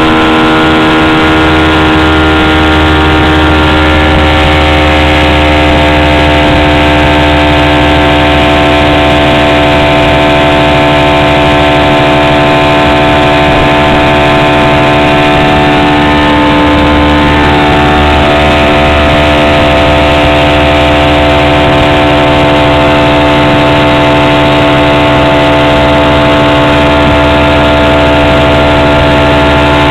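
Outboard motor pushing a boat at steady throttle: a loud, constant engine drone whose pitch holds steady, wavering slightly about halfway through.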